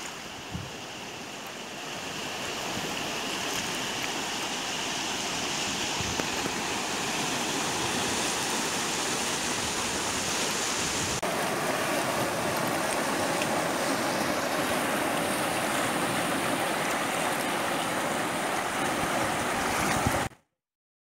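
The Munzur River rushing steadily in high water. About eleven seconds in, the rushing changes as the scene cuts to a stretch of white-water rapids. The sound cuts off suddenly just before the end.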